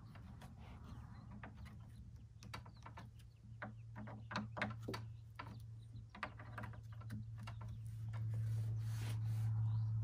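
Faint clicks, taps and small rattles of a hand tool and small parts being handled while wiring is worked on, over a steady low hum that grows louder near the end.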